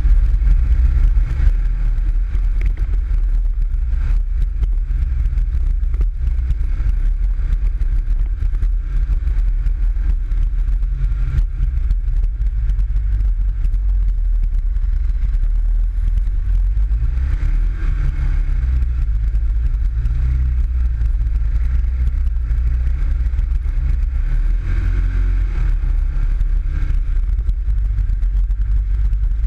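PGO 500i off-road buggy's engine running under way, heard from on board, a steady deep drone whose revs rise and fall twice, past the middle and near the end.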